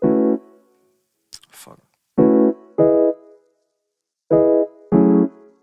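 Background music under the end screen: electric-piano chords struck one at a time, about five of them, each dying away before the next. A short hiss sounds about a second and a half in.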